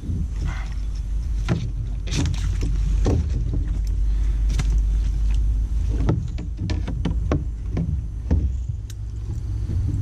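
Scattered knocks, clicks and rustles of handling on a fishing kayak over a steady low rumble.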